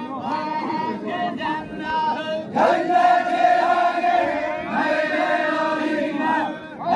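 Zikri chogan devotional chant: a single voice sings a shifting line, then about two and a half seconds in a chorus of men answers in unison on a long held note, which swells again near the end.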